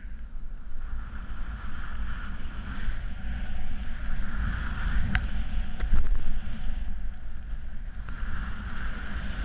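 Wind buffeting a GoPro's microphone while a snowboard slides over crusted snow: a steady rumble and hiss. A couple of sharp clicks about five and six seconds in.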